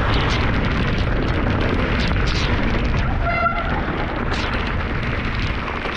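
Wind and heavy rain buffeting a mountain biker's camera microphone, a steady heavy rumbling noise broken by many small knocks as the bike rattles over the wet trail. A brief squeal cuts through about three and a half seconds in.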